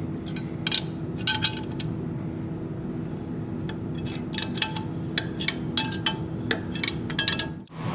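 Sharp metallic clicks and clinks from a hand-operated RivNut installation tool and the wrench turning it, as a RivNut is squeezed into place in aluminium sheet. A scattered run of clicks near the start, then a busier run from about four seconds in, over a steady low hum, all cutting off just before the end.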